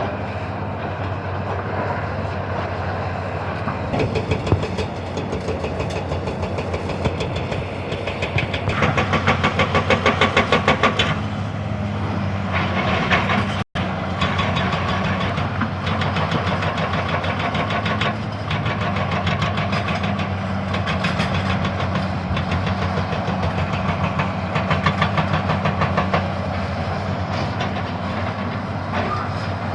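Excavator's diesel engine running steadily, with a rapid rhythmic metallic clatter that is loudest about nine to eleven seconds in.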